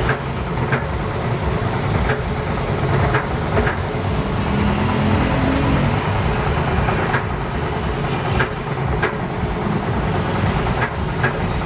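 Wire-end trimming machine for cage making running with a steady motor drone, with irregular sharp clicks scattered through it.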